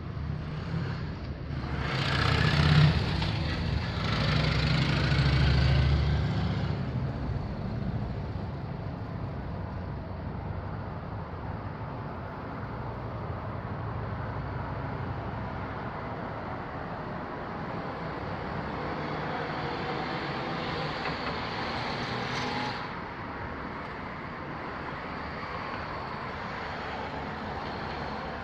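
Road traffic: a vehicle passes close by with a swell of engine and tyre noise about two seconds in that fades by about seven seconds. A steady traffic hum follows, and a second vehicle passes, cutting off sharply about twenty-three seconds in.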